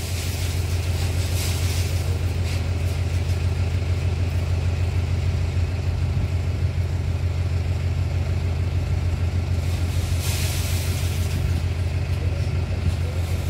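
An engine running steadily, a constant low drone, with a short rushing noise about ten seconds in.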